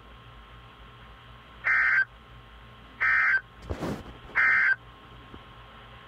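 Emergency Alert System end-of-message data bursts: three short, identical buzzy digital bursts about 1.3 seconds apart, marking the end of the alert. A brief crackle comes between the second and third, over a faint radio hum.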